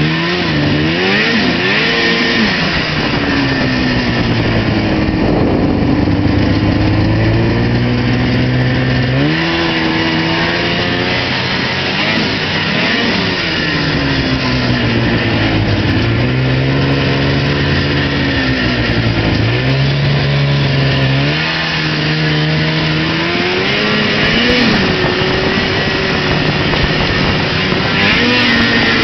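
Old Arctic Cat Pantera snowmobile engine running under way, its pitch rising and falling again and again as the throttle is opened and eased off.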